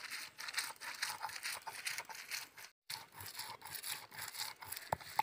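Stone muller rubbed back and forth over a flat grinding stone (sil-nora), crushing coriander leaves, garlic leaves and fried garlic into a paste: repeated gritty scraping strokes, with one sharp knock near the end.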